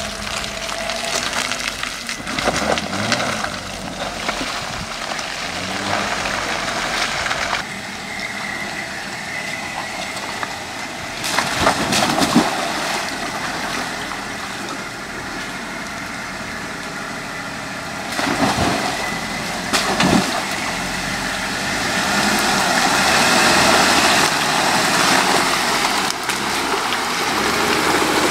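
Jeep Wrangler Unlimited engine running as it crawls through mud and a muddy water hole, with water sloshing around the tyres. The sound changes abruptly a few times.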